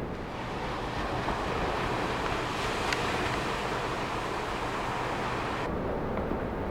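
Ocean surf: a steady rush of waves breaking on the beach. The higher hiss drops away suddenly about a second before the end.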